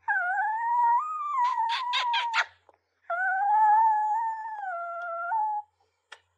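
Small black-and-tan dog howling: two long, steady howls with a short break between them.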